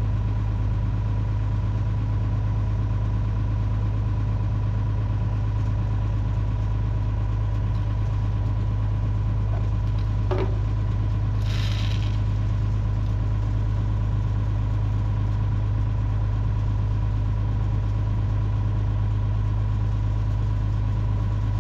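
Engine idling steadily with a deep, even hum. About ten seconds in there is a short rising chirp, and a brief hiss follows about a second later.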